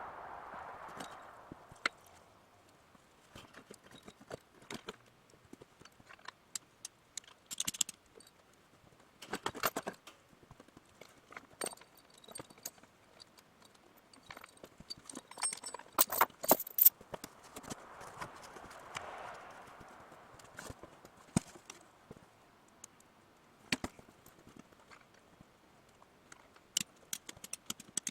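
Irregular clinks and knocks of hand tools and metal parts being handled while working on a diesel engine, with a dense cluster about two-thirds of the way through. A soft swelling noise rises and falls at the start and again a little later.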